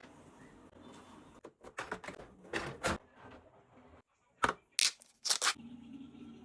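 Light knocks and rattles of dishwasher parts being handled, then a few sharp clacks near the end.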